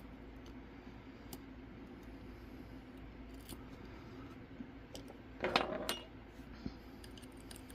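Small metallic clicks and scrapes of lock picking tools working in a DOM ix5KG dimple lock cylinder, with a short cluster of louder clicks about five and a half seconds in.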